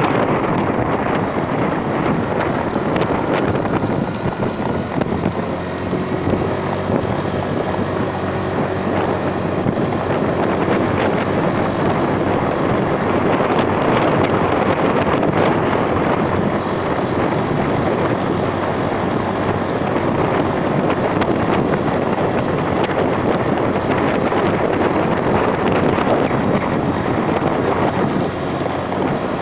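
Wind buffeting the microphone over the steady running of a vehicle's engine during a ride.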